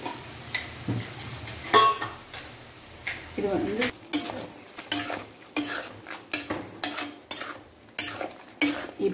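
A steel spoon scraping and knocking against a metal kadai as soya chunks are stirred and sautéed, with a light sizzle. The strokes are irregular and come quicker and more often from about halfway in.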